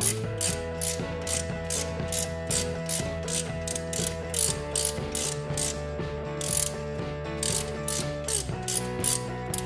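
Socket ratchet clicking in a steady rhythm, about two to three clicks a second, as the wheel hub's mounting bolts are loosened.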